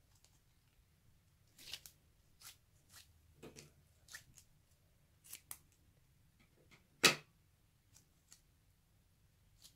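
Slime-filled glitter stress ball being squeezed and handled: scattered soft squishy, sticky crackles, with one louder click about seven seconds in.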